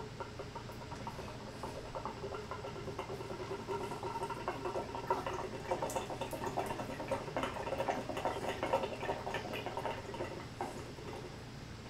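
Faint scratching and light clicking, densest through the middle, as the pulled-out shower cartridge is handled in the hand.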